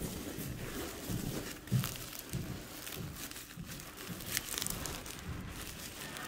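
Polystyrene packing peanuts rustling and bubble wrap crinkling as a hand digs through a cardboard box and lifts out a bubble-wrapped part, with irregular crackles.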